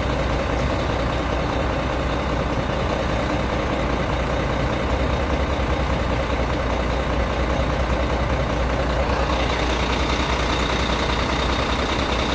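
Diesel engine of a Lonking CDM6225 excavator idling steadily, with a deep, even hum. A faint high steady whine joins about nine seconds in.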